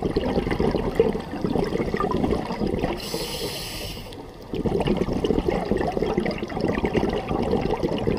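Scuba diver breathing through a regulator underwater: a long exhalation of bubbles, a short hiss of inhalation about three seconds in, then another long stream of exhaled bubbles.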